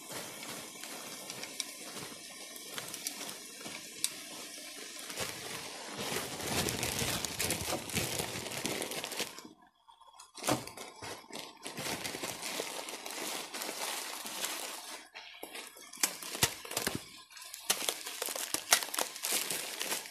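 Frozen corn kernels poured from a crinkling plastic bag into a hot frying pan of vegetables, a dense rattle and sizzle that is heaviest about six to nine seconds in. It stops briefly just before ten seconds, then the bag crinkling and sizzling carry on with a few sharp clicks.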